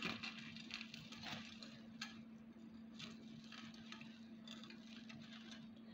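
Dry cornbread crumbs and shredded chicken being mixed and pressed by hand in a glass baking dish: faint, irregular soft crackles and rustles. A steady low hum runs underneath.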